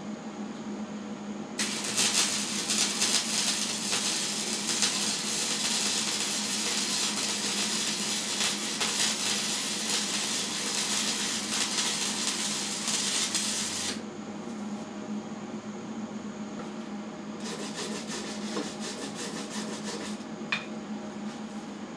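Hobart Handler 140 MIG welder running .030 flux-core wire, its arc crackling steadily for about twelve seconds as a bead is laid on the steel mower deck's lift bracket, then cutting off suddenly. A few seconds later a wire brush scrubs the fresh weld in quick strokes for about three seconds.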